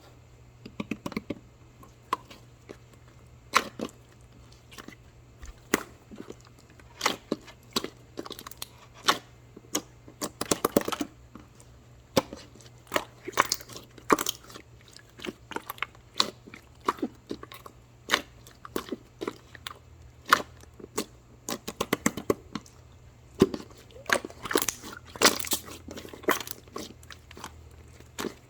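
Irregular crisp crunching and clicking, several times a second, like something being chewed, with denser runs about ten seconds in and again near the end.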